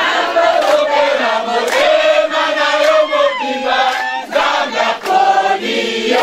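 A crowd, mostly women, singing and chanting together, several voices holding and bending notes.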